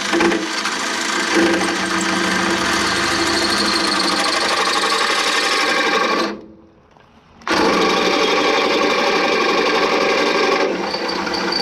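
Cordless drill running under load, boring a bolt hole out to 12 mm through two stacked metal plates. It stops for about a second a little past halfway, then starts again.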